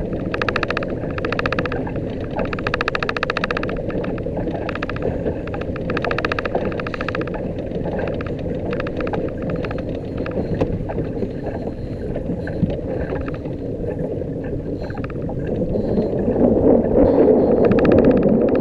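Wind and choppy water around a small fishing boat make a steady rushing noise, growing louder near the end, broken up by repeated short, buzzing mechanical whirs.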